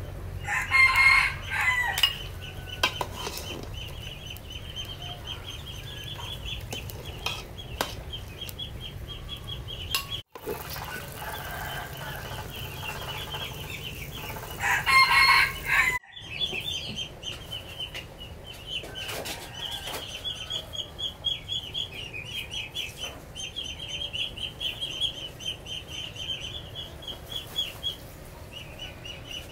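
Yard chickens clucking, with a rooster crowing about a second in and again about fifteen seconds in, over a steady high, rapid chirring.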